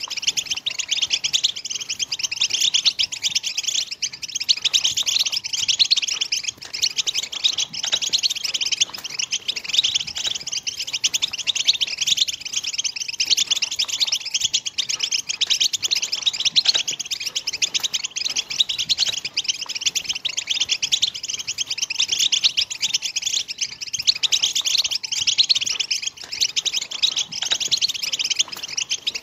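European goldfinches singing: a dense, unbroken stream of rapid twittering and chattering notes.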